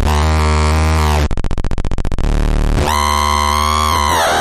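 Electronic noise box synth putting out loud buzzy electronic tones. A low buzzing drone breaks into a fast stuttering pulse a little over a second in. A higher buzzing tone follows near the end and bends downward as it stops.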